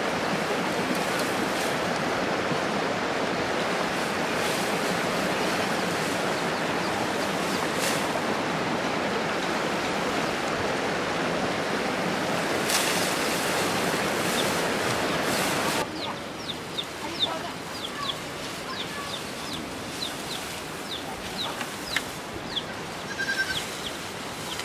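A steady rushing noise for about sixteen seconds, which cuts off suddenly. After it, chickens are heard in a quieter background: repeated short, high chirps and a few clucks.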